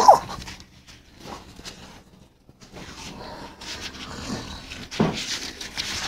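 A short whimper falling in pitch right at the start, then faint rustling and scuffing, with a few soft knocks about four and five seconds in.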